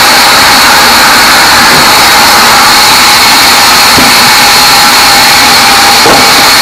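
Band sawmill running loud and steady, with a high whine that holds one pitch throughout.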